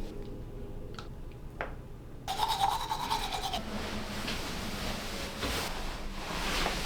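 A bristle brush scrubbing back and forth, starting about two seconds in after a few light clicks.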